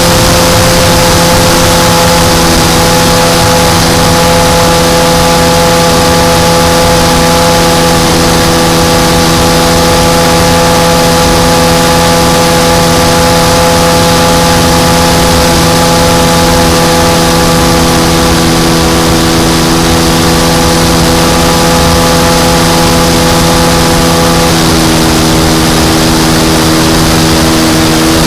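The engine of an EZ Decathlon radio-controlled model airplane running steadily in flight with its propeller spinning, heard up close from on board the plane. Its pitch shifts slightly near the end.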